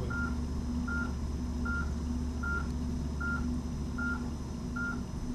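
Short electronic beeps of one steady pitch, about one every 0.8 s, seven in a row, from procedure-room medical equipment, over a steady low electrical hum.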